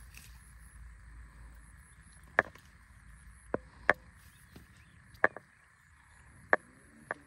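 Sharp clicks and taps, about six at irregular intervals, from hands handling a small freshly caught fish and working the hook out of its mouth.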